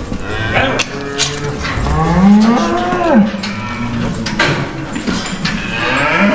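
Several cattle mooing in a crowded pen, the calls overlapping, one long moo rising and then falling in pitch about two to three seconds in. A few sharp knocks sound among the calls.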